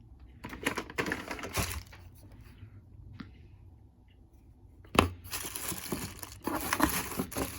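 Plastic packaging crinkling and rustling as cable adapters are unwrapped and handled, in two spells, with a sharp click about five seconds in.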